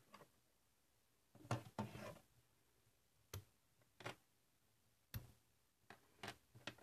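LEGO Technic plastic parts clicking and knocking as they are handled and set down on a wooden tabletop: a string of separate sharp clicks, with a louder clatter about one and a half to two seconds in.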